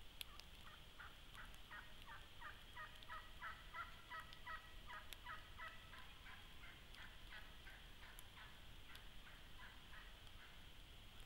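Wild turkey calling faintly: a long run of quick, pitched notes, about four or five a second, swelling over the first few seconds and fading away near the end.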